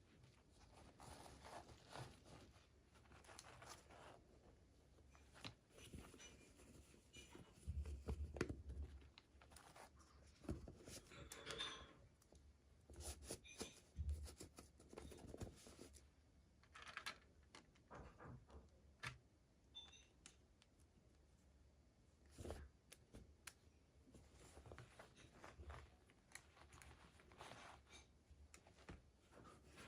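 Faint rustling, crinkling and small clicks of toy packaging being handled and opened, coming in irregular bursts with a few louder handling noises along the way.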